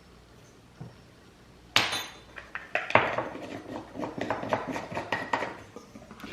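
A kitchen utensil clinking and scraping in a mixing bowl of dry biscuit ingredients. A sharp knock comes about two seconds in, then a run of quick, irregular clinks.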